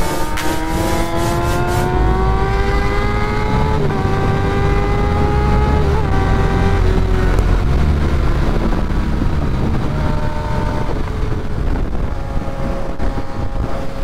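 Kawasaki ZX-6R inline-four engine at highway speed, its note rising steadily for about four seconds as the bike accelerates, then holding and fading out about seven seconds in. Heavy wind rumble on the microphone runs under it throughout, and a steadier engine tone comes back near the end.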